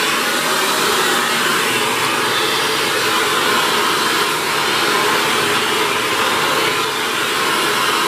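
Shark NV602UKT corded upright vacuum cleaner running steadily, sucking through its extension wand as the nozzle is worked along the top of a wall.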